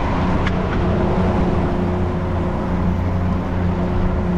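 Boat's outboard motor running steadily at trolling speed: a continuous low drone with a steady hum, over wash and wind noise.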